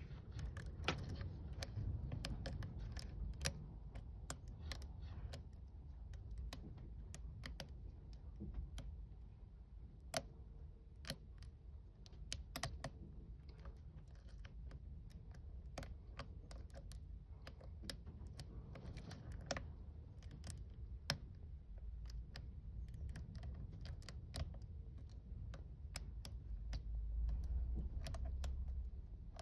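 Small irregular clicks and light scrapes of a lock pick and tension wrench working the standard pins of a five-pin Smith & Locke padlock, over a low steady rumble.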